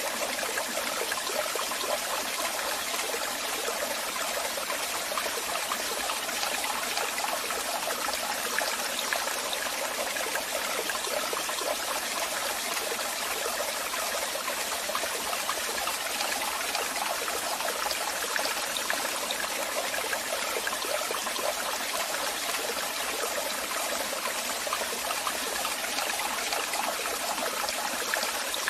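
Waterfall: water falling and splashing in a steady, even rush, mostly in the middle and high range with little low rumble.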